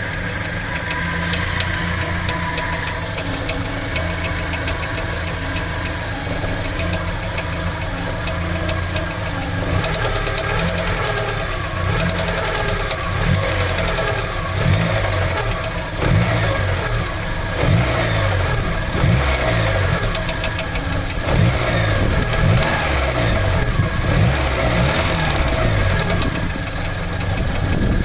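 Audi 100 2.0 petrol engine running with a knock from a spun bearing shell, steady at first and then revved up and down repeatedly from about ten seconds in.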